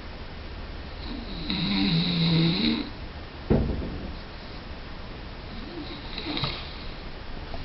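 A sleeper snoring: one long, pitched snore with a hissing edge about a second in, and a fainter, shorter snore near six seconds. Between them, a sudden thump.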